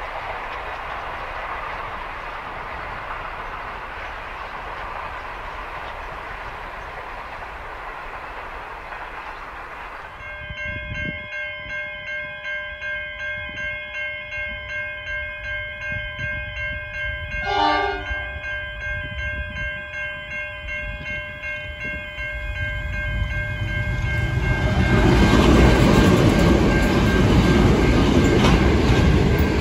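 Container freight wagons rolling past with a steady rumble of wheels on rail. After a cut, a pedestrian crossing's warning bells ring about twice a second, a locomotive horn sounds once briefly, and the loud rumble of the NR-class diesel locomotives hauling steel train 1MP2 builds as they arrive.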